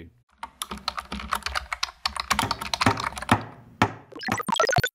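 Rapid computer keyboard typing, a fast run of clicks for about four seconds, then a short bright electronic jingle of quick high notes starts near the end.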